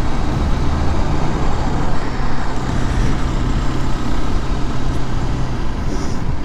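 Mondial SMX 125i supermoto's 125 cc single-cylinder engine running steadily under way, over a steady rushing noise. The engine note changes near the end.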